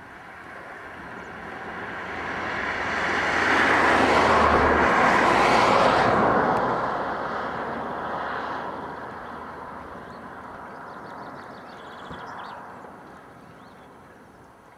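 A passing vehicle: a broad rushing noise swells for about four seconds, peaks, then slowly fades, with a smaller swell near the end.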